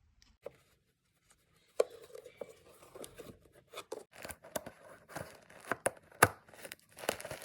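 Vacuum cleaner dust bag and its wrapping being handled: crinkling and tearing, with several sharp plastic clicks.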